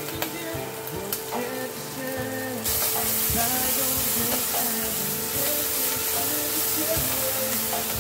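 Oil sizzling in a cast iron pot as chilli paste, garlic, ginger and whole spices fry in it; the sizzle grows suddenly louder about two and a half seconds in. Background music plays over it.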